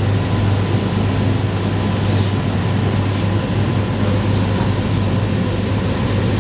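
Steady low hum over an even rush of noise inside a London Eye passenger capsule as the wheel turns.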